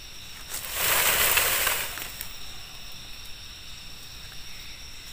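A brief rustling hiss that swells and fades over about a second, near the start, over faint steady high-pitched insect buzzing.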